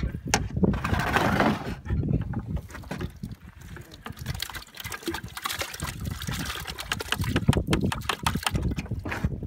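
Water splashing and dripping as a dip net full of live fish is hauled out of a tank and tipped into a plastic bucket, the fish flopping in the wet mesh.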